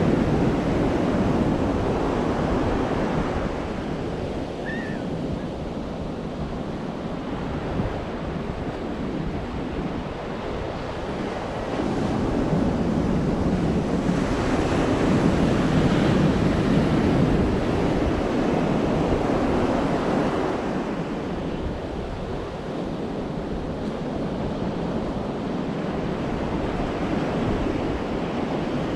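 Atlantic surf breaking and washing up a sandy beach, the wash swelling louder near the start and again midway, then easing off.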